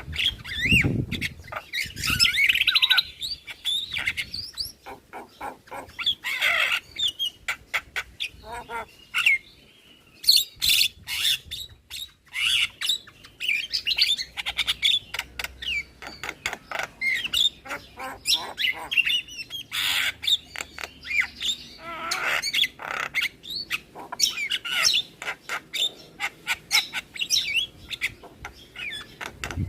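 Javan myna singing a long, varied stream of whistled notes, harsh squawks and rapid clicking chatter. There is a short low thump about a second in.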